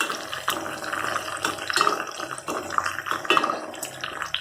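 Fresh herb leaves (Indian borage, tulsi, betel leaf) sizzling and crackling in coconut oil heating in a kadai, with many small pops: the water left on the freshly washed leaves is boiling off in the oil.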